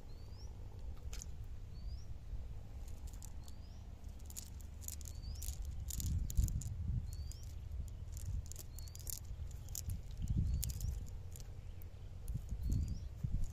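Crackling and rustling of a wet mesh fishing net and debris being picked through by hand, with a few muffled low bumps. A bird's short rising chirp repeats about once a second.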